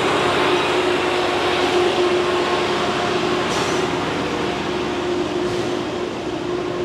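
A steady mechanical rumble with a constant hum, slowly fading.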